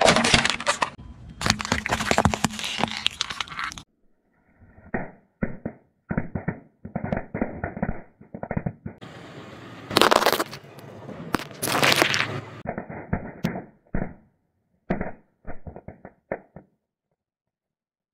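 A car tyre rolling slowly over small objects and crushing them: loud bursts of dense crackling and crunching alternate with runs of separate sharp pops and snaps. Several short clips are spliced together, with abrupt cuts and brief silences between them.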